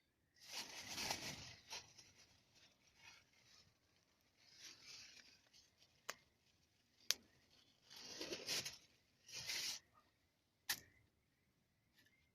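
Wood campfire burning: a few sharp single pops from the wood, between several short swells of soft crackling noise.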